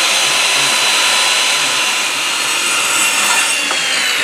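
Circular saw cutting straight across pallet-wood boards: a steady, loud high whine with the noise of the blade through the wood.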